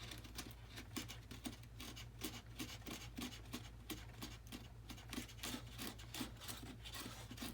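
Hand tool scraping and rubbing foam in quick, even back-and-forth strokes, about three a second, smoothing an opened-out foam exhaust nozzle. A low, steady hum runs underneath.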